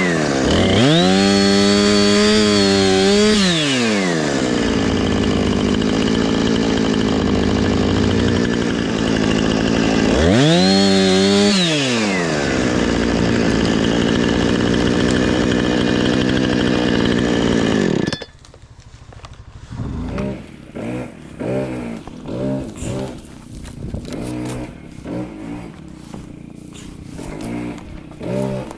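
Husqvarna Rancher 455 two-stroke chainsaw running loud and revved to full throttle twice, each time rising to a high whine and falling back; it stops abruptly about two thirds of the way in. After that an engine runs quieter, revving in short uneven surges.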